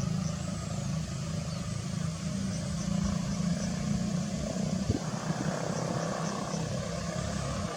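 A steady low hum, like an engine or distant traffic, with faint short high chirps recurring in small groups.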